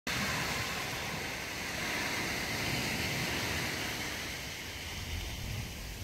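Thin wash of sea water running over beach sand, a steady hiss over a low surf rumble, easing off about five seconds in.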